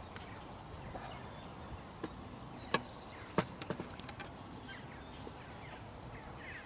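A few sharp clicks and taps from a carbon fishing pole being handled, bunched between about two and four seconds in. Under them is a quiet outdoor background with faint bird chirps near the end.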